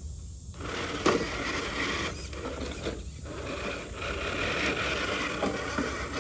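Traxxas radio-controlled crawler truck's electric motor and gears whirring as it drives, starting and stopping in short spurts, with a sharp click about a second in.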